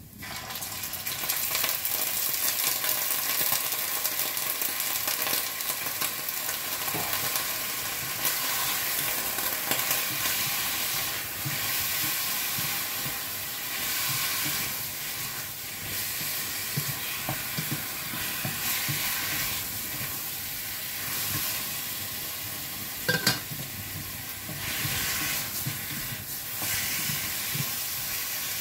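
Marinated meat sizzling as it goes into hot oil in a stainless steel frying pan, then frying steadily while it is stirred. The sizzle swells within about half a second and stays dense, with a couple of sharp clicks about 23 seconds in.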